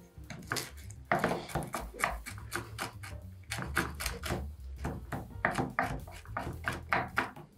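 Kitchen knife chopping dried fruit into small dice on a cutting board: quick, uneven knocks, several a second.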